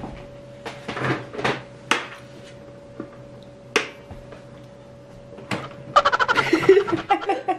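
A few sharp clicks from the crank of a Pie Face game, with a louder snap about five and a half seconds in as the spring-loaded hand flips up, then loud rapid laughter.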